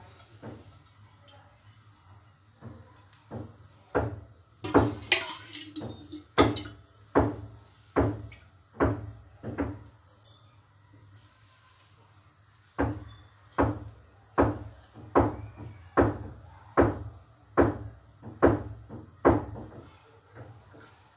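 Cooking oil poured from a bottle into an empty nonstick kadhai, glugging in a regular run of pulses about one every second, in two runs with a short pause near the middle.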